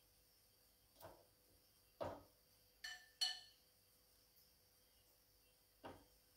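A utensil knocking and clinking against a ceramic bowl and plate while food is served out, about five light clinks a second or so apart, two of them ringing briefly about three seconds in, with near silence between.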